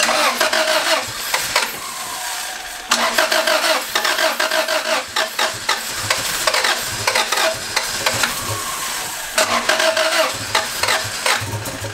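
1993 Honda Civic's B18B1 four-cylinder engine being cranked over and over by the starter, firing fitfully but not catching: a no-start that persists after a new igniter and ignition coil.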